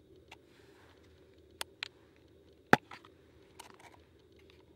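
Plastic food container's snap-on lid being pried off: a few sharp plastic clicks and snaps, the loudest about halfway through, then the container rattling in the hand.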